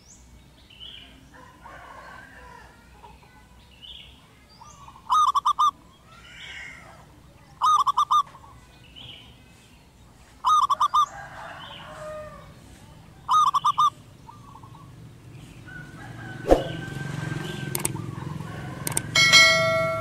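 Zebra dove cooing: four short phrases of rapid, stuttering trilled notes a few seconds apart, with fainter calls of other birds in between. Near the end a sharp knock and a rising low rumble, then a brief pitched tone.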